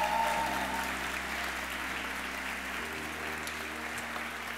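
Audience applauding steadily as a speaker is welcomed to the stage, a little louder in the first second.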